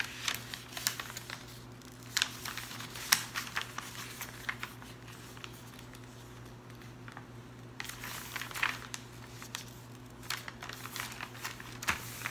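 A sheet of unlined paper being folded and creased by hand: crisp crackling and rustling in several short bursts, with a quieter pause about halfway through.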